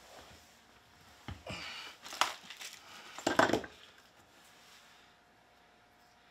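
Plastic and metal keyboard-stand parts being handled: a few clacks and rustling scrapes, loudest at about three and a half seconds in.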